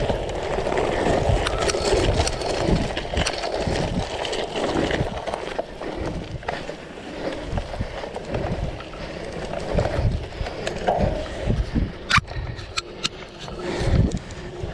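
Cyclocross bike ridden fast over a dirt and sandy track, heard from a handlebar-mounted camera: a steady rumble of tyres on the loose surface, with wind buffeting the microphone and the bike rattling over bumps. A few sharp clicks come about twelve seconds in.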